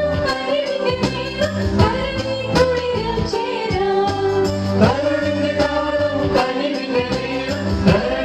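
Mixed group of men and women singing a Christmas carol together into microphones, over amplified backing music with a steady beat and bass.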